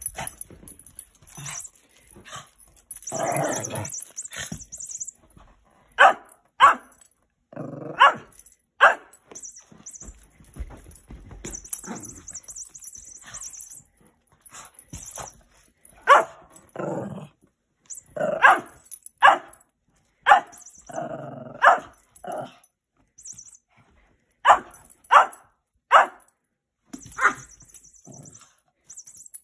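Small dog barking in play, a dozen or so short, sharp barks spread out with pauses, often two in quick succession.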